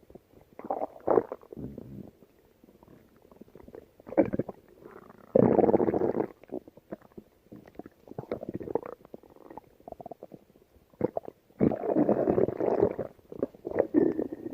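Hungry human stomach growling in irregular rumbles of varying length, with two longer, louder rumbles about five and about twelve seconds in.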